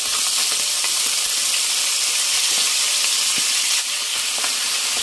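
Minced mutton hitting very hot oil and cumin seeds in a kadhai, sizzling loudly as it fries. The steady frying hiss surges right at the start, with a few faint knocks of the spatula as the mince is stirred.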